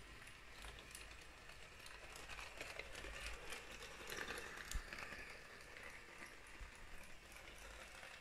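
LEGO Powered Up steam locomotive running on plastic LEGO track, a quiet rattle with many small clicks as its wheels pass over the rail joints and points.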